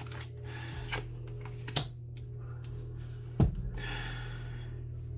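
Tarot cards being handled: a few light taps and a short papery slide about four seconds in, over a steady low hum.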